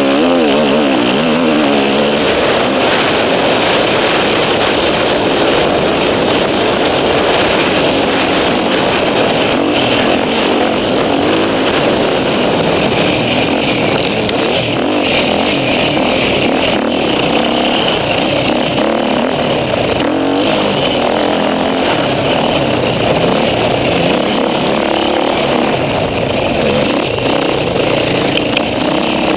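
Enduro dirt bike engine heard close up from the rider's onboard camera, running hard with revs rising and falling continuously as the bike is ridden through the corners of a dirt track.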